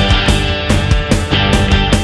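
Rock-style background music with a fast, steady beat.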